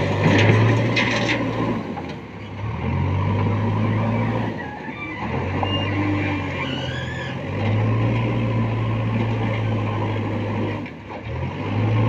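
JCB backhoe loader's diesel engine revving hard in repeated surges every two to three seconds, dipping briefly between them, as it works its loader bucket and shuttles to the stockpile. In about the first second, stones clatter as a bucketful of crusher aggregate is tipped into the steel body of the tipper truck.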